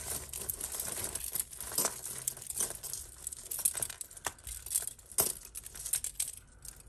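Costume jewellery being handled and sorted: small metal and glass pieces clicking and clinking against each other at irregular moments, with crinkling of the plastic bags they came in.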